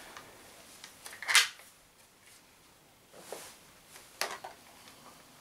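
A few sharp clicks and knocks from handling and loading an Umarex HDS68 CO2 gun, the loudest about a second in, with lighter ones later.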